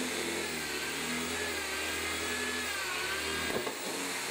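Electric drill with a 1/4-inch bit running steadily as it bores a hole through plywood; the pitch sags slightly under load near the end, and the low motor hum drops out about three and a half seconds in.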